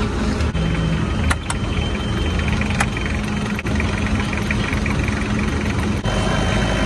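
STILL RC42-25 forklift engine idling steadily, heard with its engine cover tilted open. There are a few sharp clicks in the first three seconds as the cover is lifted.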